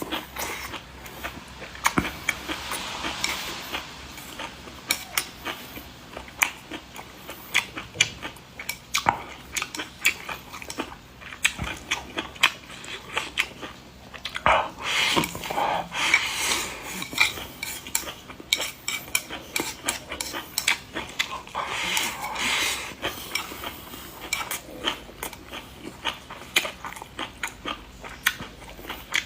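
Close-miked eating: many quick clicks and taps of utensils against dishes, with a few longer stretches of noisier eating sound about halfway through and again later on.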